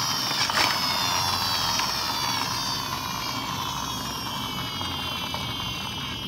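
Toy construction truck's gears whirring in a high whine that falls slowly and steadily in pitch as they spin down.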